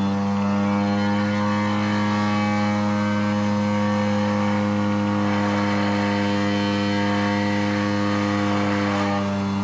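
Vibratory pile hammer driving a steel pile into the ground: a steady, loud mechanical hum that holds one pitch throughout.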